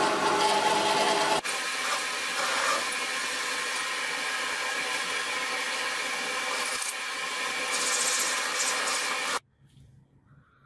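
Power tool running with a rubbing, scraping sound of work on the piece, over a steady machine tone. The sound changes abruptly just over a second in and cuts off suddenly near the end.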